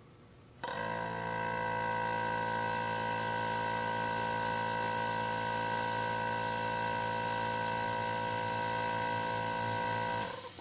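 Hermetic refrigerator compressor starting abruptly and running with a steady hum, building pressure into a gauge on its outlet up to about 100 PSI, then stopping shortly before the end.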